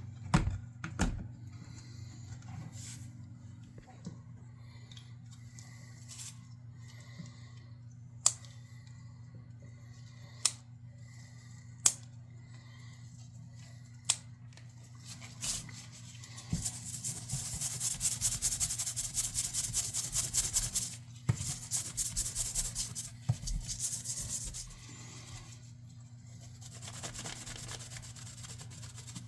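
Hand-tool work on a bench: scattered sharp clicks every second or two, then several seconds of fast, rhythmic scraping or cutting strokes, which pause briefly and resume. A steady low hum runs underneath.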